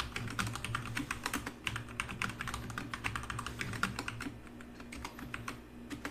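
Typing on a computer keyboard: a rapid run of key clicks that thins out to scattered keystrokes after about four seconds.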